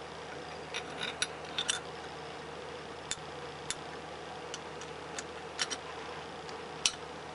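Light metal clicks and ticks, a dozen or so spread unevenly, as a new thrust plate is handled and seated over the shaft onto the TD05H turbocharger's center section, over a steady low hum.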